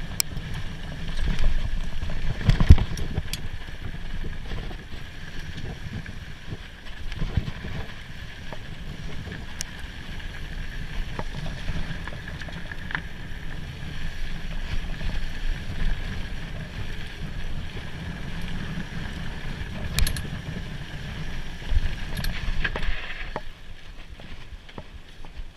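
Mountain bike riding a dirt trail: steady rolling rumble of the tyres and wind on the camera microphone, with sharp knocks and rattles as the bike hits bumps, the loudest about two and a half seconds in and again near the end. The noise dies down a couple of seconds before the end.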